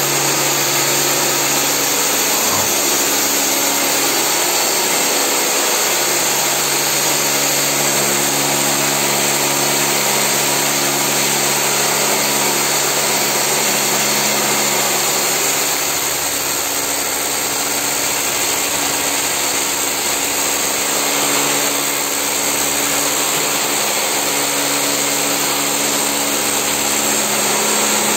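Steady, unbroken whir of an electric motor, with a constant hum under a broad hiss.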